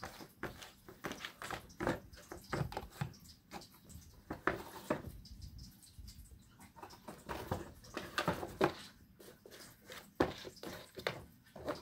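A cat pawing, scratching and pushing a cardboard box across a wooden floor: irregular scrapes, taps and cardboard rustles, with a short lull around the middle.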